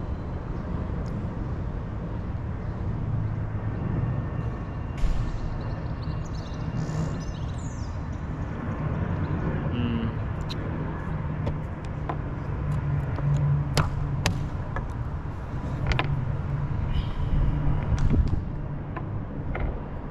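Outdoor city background noise: a steady low rumble with a few sharp clicks scattered through it.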